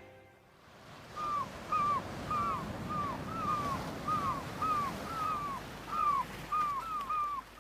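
A bird calling over and over: short, arched, chirping calls, about two a second, starting about a second in, over a faint steady hiss.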